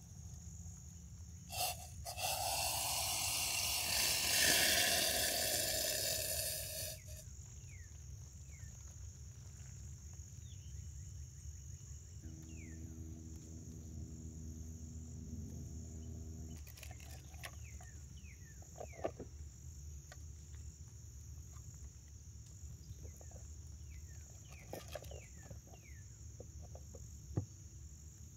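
Insects trilling in a steady high-pitched chorus. A loud rushing noise rises about two seconds in and lasts about five seconds, and short falling chirps come and go over the trill.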